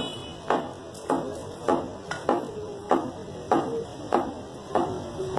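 Butcher's cleaver chopping meat on a wooden chopping block, steady strokes a little under two a second.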